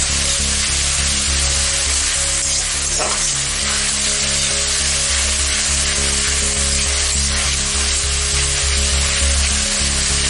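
Vegetables and sauces sizzling hard in a wok on a high flame while a steel spatula stirs them, a steady dense frying hiss.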